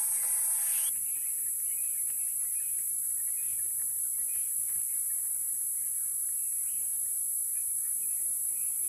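Insect chorus in the bush: a steady, very high-pitched shrill, with faint scattered chirps beneath it.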